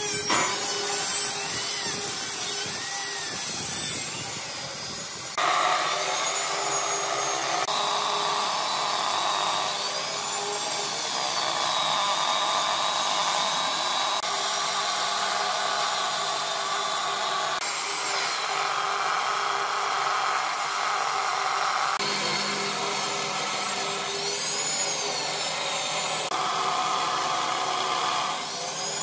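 Makita handheld circular saw cutting through a thick wooden slab, its motor whine dipping and recovering in pitch as the blade bites into the wood. The sound changes abruptly a few times.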